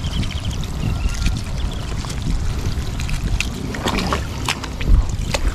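Steady low rumble of wind buffeting the microphone out on open tidal water, with scattered sharp clicks and light splashes.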